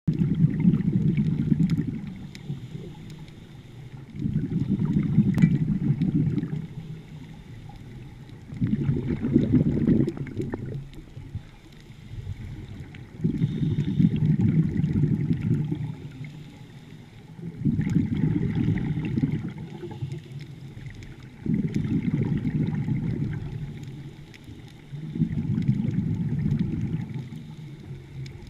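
Scuba diver breathing through a regulator underwater: a low bubbling rumble of exhaled air about every four seconds, each lasting about two seconds, seven times over, with quieter stretches between breaths.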